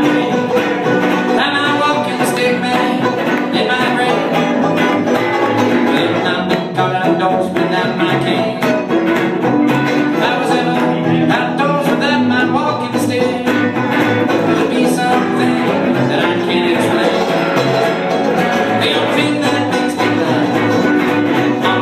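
Live acoustic string band playing a country-blues tune, with upright bass, acoustic guitar and a second plucked string instrument.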